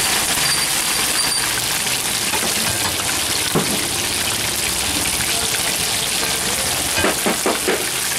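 Fish deep-frying in a kadai of hot oil: a steady sizzle of bubbling oil, with a few short knocks in the last second or so.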